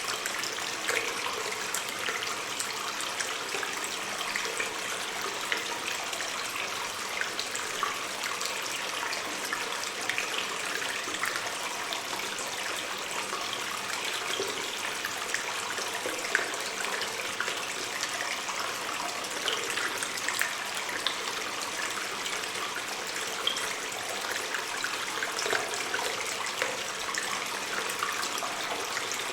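Water stream flowing and trickling in a cave, a steady rushing sound with small splashes and drips scattered through it.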